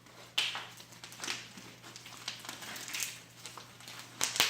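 Slime being squished and poked, giving irregular crackles and pops every second or so, the loudest near the end.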